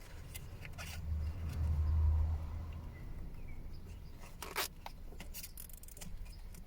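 A nylon cable tie being pulled tight, with a short ratcheting zip, among a few sharp clicks and handling knocks from working on car wiring.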